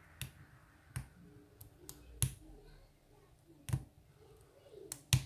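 Scattered metallic clicks of a deep hook pick working the pins inside a lock's keyway, coming at uneven intervals with the sharpest click near the end.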